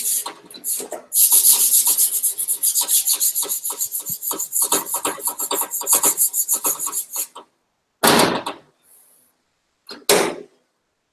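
Sandpaper rubbed by hand over the bare sheet-steel door panel of a Daihatsu Hijet micro truck in rapid back-and-forth strokes, scuffing the metal to prepare it for body filler. The sanding stops about seven seconds in, followed by two short scuffs.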